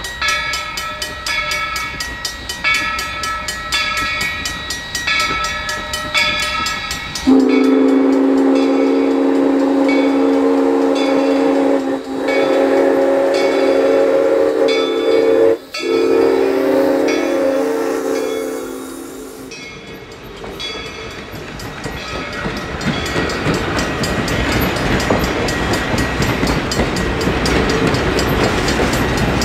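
Steam locomotive bell ringing, about one and a half strokes a second. About seven seconds in, the steam whistle of 1923 ALCO locomotive #97 blows a steady low chord for some twelve seconds, broken twice by short gaps, while the bell keeps ringing. After the whistle stops, the rumble and rail noise of the passing train grow louder.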